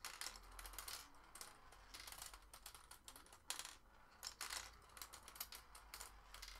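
Turing Tumble marble computer running: marbles clicking and clattering faintly and irregularly as they roll through the plastic bits and ramps, the bits flipping as the program counts down, and the balls dropping onto the trigger levers at the bottom.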